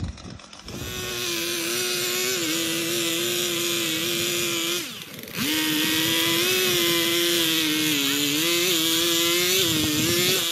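Two-stroke chainsaw running at high revs, cutting into a tree trunk, its pitch wavering under load. About five seconds in the throttle drops off for a moment, then the saw revs back up and cuts on.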